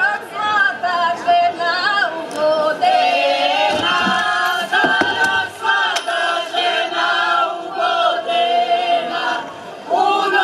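A group of folk singers in costume singing a traditional wedding song together in chorus, with long held, wavering notes.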